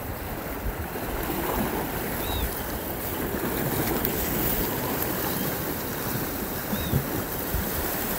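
Wind buffeting the microphone over surf washing on a rocky shore, a steady noise, with two faint short high chirps about two and seven seconds in.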